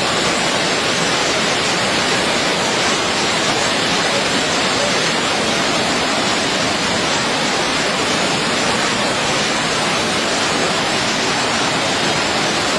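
Water rushing steadily through the opened spillway gates of the Aswan High Dam, released to relieve pressure on the dam at record reservoir levels.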